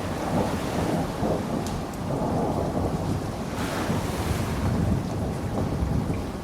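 Rain with a rolling low rumble of thunder; a brief rush of higher hiss swells up a little past the middle.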